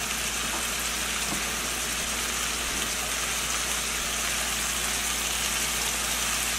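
Chicken strips sizzling steadily in hot oil in a non-stick frying pan, over a steady low hum.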